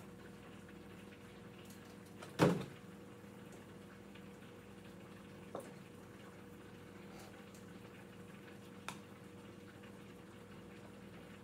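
Kitchen items handled at the counter while hoe cake batter ingredients are set out: one sharp knock about two seconds in, then two light clicks, over a steady low hum.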